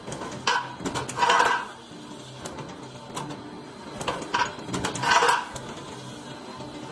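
Light gauge steel stud-and-track roll forming machine running, with a steady hum and repeated metal clanks and clatter; the loudest clatter comes about a second in and again about five seconds in.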